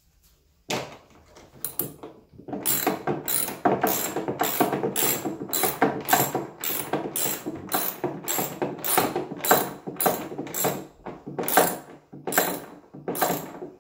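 Ratchet socket wrench clicking in quick, even back-and-forth strokes, about three a second, tightening a bolt that fixes a bed rail to its post.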